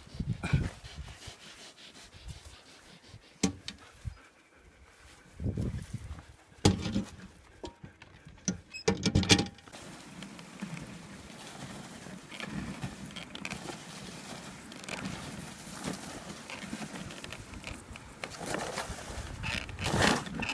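Huskies and a dog sled on snow. In the first half there are scattered sharp knocks and short noises around dogs shut in their metal-doored transport boxes. From about halfway there is a steady rushing noise as the sled runs behind the trotting team.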